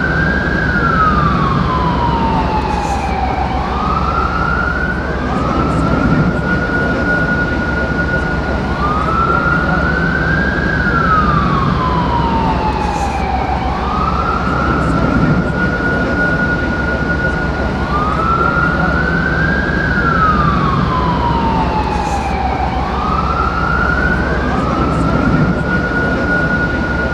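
Emergency vehicle siren wailing: the pitch rises, sweeps slowly down, rises again and holds steady, the cycle repeating about every ten seconds, over a steady low rumble.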